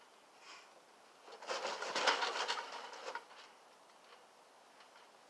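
A person jumping off a plastic toy table and landing on a backyard trampoline: a noisy burst of quick clattering from the trampoline, starting about a second in and lasting about two seconds.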